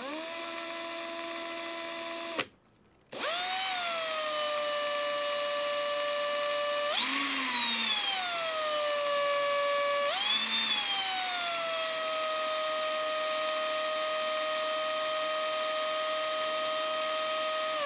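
Cordless drill motor whining steadily as it spins a 0.5 mm micro drill bit into thin sheet metal. It runs briefly, stops, then starts again. About 7 and 10 seconds in, its pitch dips and climbs back as the bit takes load.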